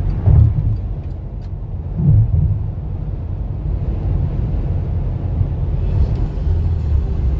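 Steady low rumble of road and engine noise heard from inside a car cabin at highway speed, with two brief louder swells, one just after the start and one about two seconds in.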